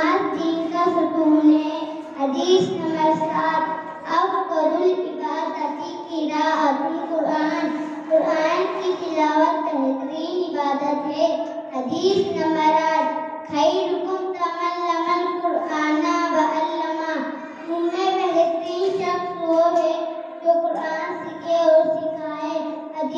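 A young boy chanting melodically into a handheld microphone, in long held, sung phrases with short breaths between them.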